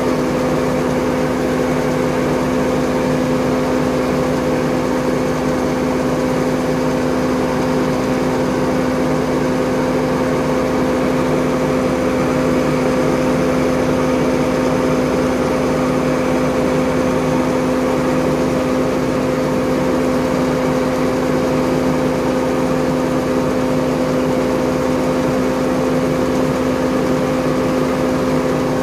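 Grain auger running steadily while it draws wheat out of a hopper-bottom truck trailer: a constant, loud mechanical drone with a steady hum.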